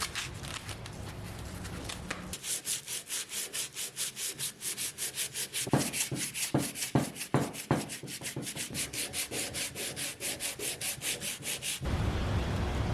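Sandpaper scrubbing back and forth over a torch-charred wooden board, in quick, even strokes about four or five a second, to bring out the grain. It starts about two seconds in and stops near the end, with a few heavier strokes in the middle.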